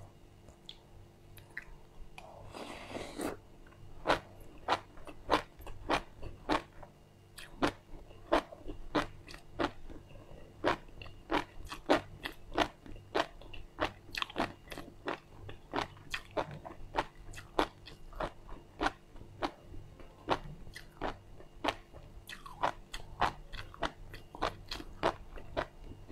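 Close-up mouth chewing of a mouthful of dry white sesame seeds: a run of crisp crunches at about two a second, with a short rustle about three seconds in.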